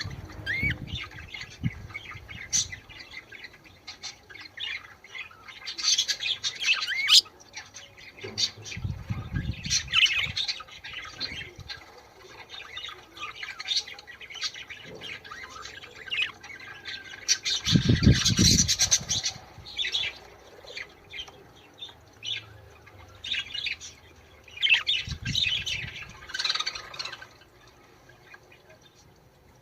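Budgerigars chattering, with quick chirps, whistled glides and squawks in irregular bursts. A few low thumps break in, the loudest about two-thirds of the way through.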